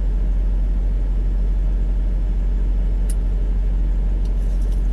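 Vehicle engine idling, heard from inside the parked cab: a steady low rumble.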